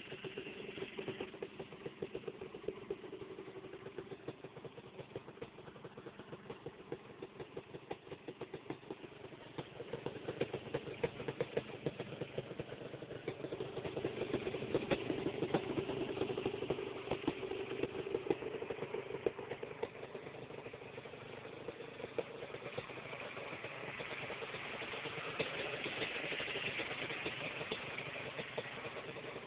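Honda TRX250R's two-stroke single-cylinder engine idling through an FMF silencer, with a quick, steady patter of firing pulses. It is louder for several seconds around the middle.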